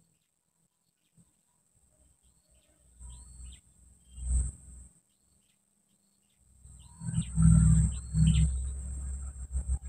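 Small birds chirping in short repeated calls over a steady high insect buzz. Loud low rumbling noise on the microphone comes in twice, briefly about three to four and a half seconds in and strongest from about seven seconds on.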